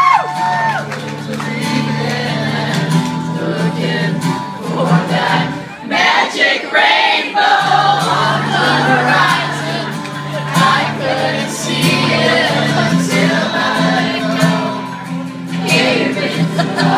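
Live acoustic guitar strumming with singing, and crowd voices mixed in.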